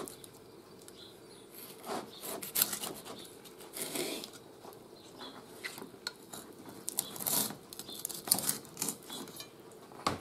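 Kitchen knife cutting and scraping along a whole fish on a wooden cutting board: short, irregular scrapes and knocks of the blade against the fish and board.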